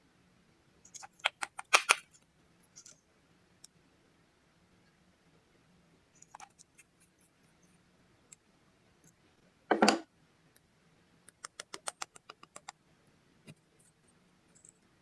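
Slime and makeup being handled and mixed: quick runs of small sharp clicks and crackles, with one louder, denser crunch about two-thirds of the way through.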